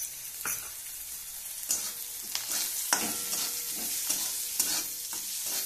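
Chopped onion, capsicum and tomato sizzling in a metal kadhai, with a steady frying hiss. From about a second and a half in, a metal spatula stirs them, scraping and clicking against the pan.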